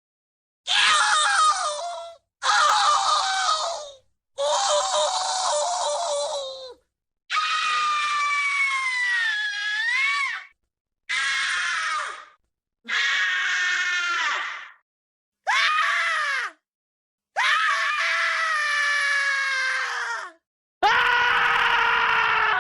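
A string of nine loud, high-pitched screaming cries, each one to three seconds long and cut off abruptly into dead silence before the next. Some waver and slide down in pitch.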